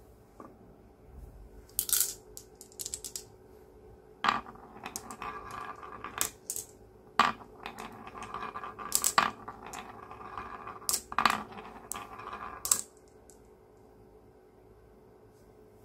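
Glass marbles rolling down a carved wooden slope track and clacking into a wooden stopper block and into each other as they pile up. The sharp clicks come in an irregular string from about two seconds in and stop about three seconds before the end.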